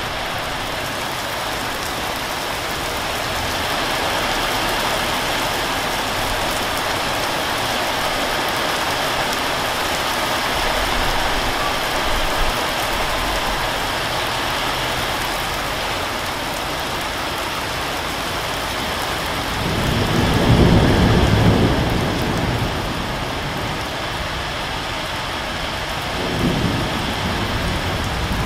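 Heavy rain falling steadily, with a low rumble of thunder swelling about twenty seconds in and a smaller one near the end.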